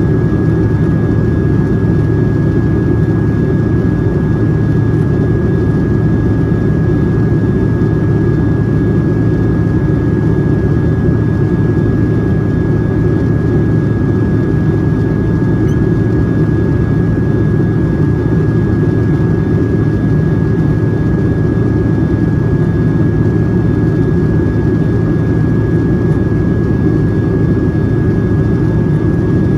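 Steady jet airliner cabin noise inside a Boeing 757-200 in flight: a deep, even rumble of engines and airflow, with a faint steady high tone above it.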